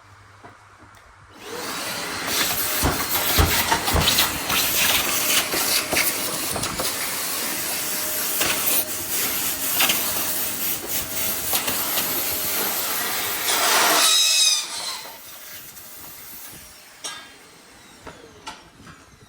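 A power tool running on wood, starting about a second and a half in and running steadily for about thirteen seconds, with a short bright whine just as it shuts off.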